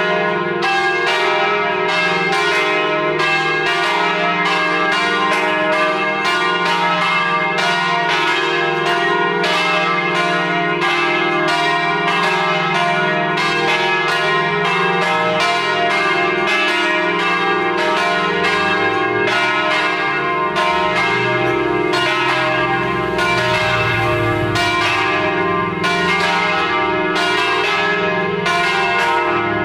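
Three large Paccard church bells, tuned E-flat, F and G, swinging and ringing together in a full peal to call to Mass. The strikes come several times a second and overlap into one continuous, steady ringing.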